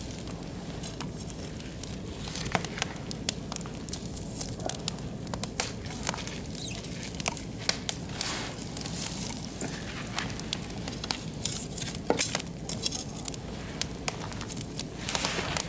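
Oak and beech wood fire crackling, with irregular sharp pops over a low steady hiss; the loudest pop comes about twelve seconds in.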